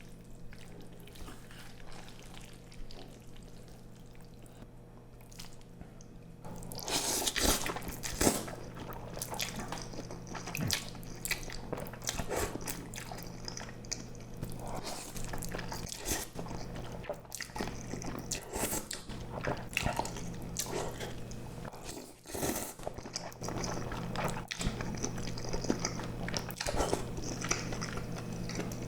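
Close-miked chewing of octopus, tripe and shrimp stew with glass noodles, with many short wet mouth clicks. It is quieter for about the first six seconds, then dense, over a steady low hum.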